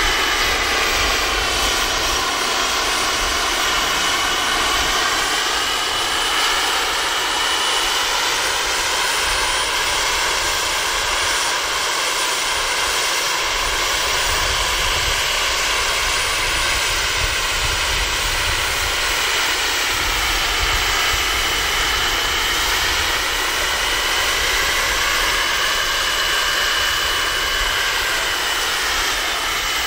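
Scale Kaman K-MAX coaxial helicopter model's small gas turbine running steadily with a high whine over the rush of its rotors. The tone of the rushing slowly sweeps up and down as the helicopter moves about while hovering with a sling load.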